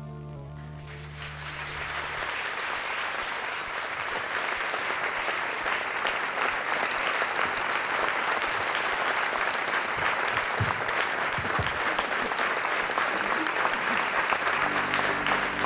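Concert audience applauding after a song: the clapping swells in over the first two seconds as the last notes of the accompaniment die away, then holds steady. About a second before the end, the band starts the next song's music under the applause.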